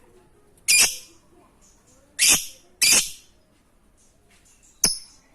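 Lovebird (Agapornis) giving four short, sharp calls, each about a third of a second long, at uneven gaps: one near the start, two close together around the middle and one near the end.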